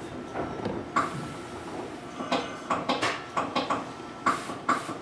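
Inside a Mizuma Railway 1000-series electric train car running into a station: a steady running rumble with about a dozen irregular clanks and knocks from the wheels and car body, thickest in the second half.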